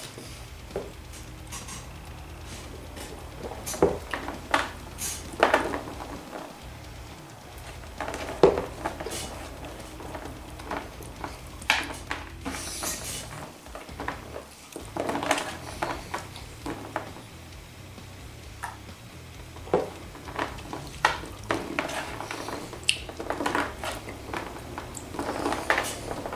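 Gummy fruit snacks being scooped and handled on a tabletop and eaten, giving scattered short clicks, taps and chewing noises.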